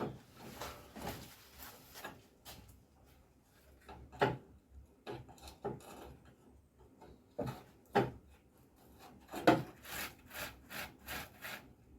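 Irregular knocks, clunks and scraping as metal jig parts are handled and tried against one another, with three sharper knocks standing out.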